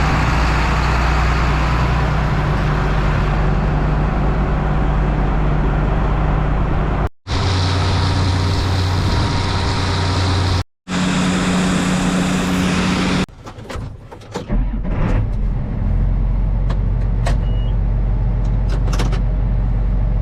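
Semi truck's diesel engine running steadily, in short stretches broken by abrupt cuts; a little past halfway it drops to a quieter stretch with a few clicks before a low engine hum resumes.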